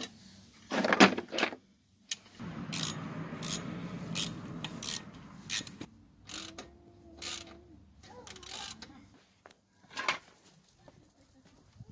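Ratchet wrench clicking and metal tools clattering as the kickstand pivot bolt is tightened, with a loud clatter about a second in and a short hum near the middle.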